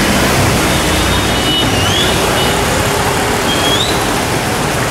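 Steady loud rush of flowing floodwater, with a low engine-like hum underneath and a few short rising chirps, about two and three and a half seconds in.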